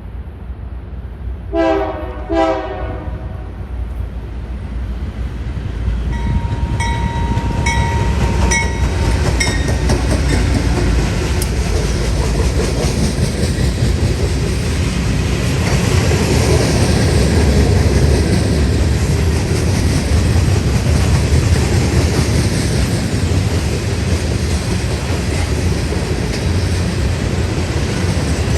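Locomotive air horn sounding two short blasts, then a train rolling past with a loud steady rumble that builds and its wheels clicking over the rail joints.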